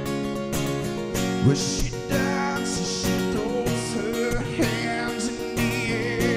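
A man singing live to his own strummed acoustic guitar. The guitar strums alone at first, and the voice comes in about a second and a half in.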